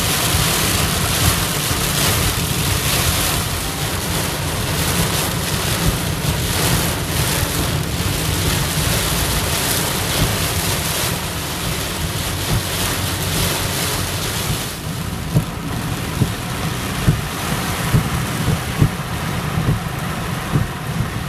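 Torrential rain hitting a car's roof and windshield, heard from inside the moving car, with a low rumble of tyres on the water-covered road underneath. A few sharper knocks stand out in the second half.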